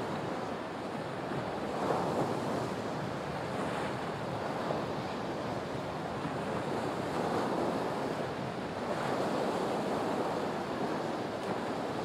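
Waves washing on the shore and wind, picked up by a Boya BY-MM1 shotgun microphone inside a Boya BY-WS1000 blimp with its furry windshield on. It is a steady surf hiss that swells a little now and then, with hardly any low wind rumble on the microphone.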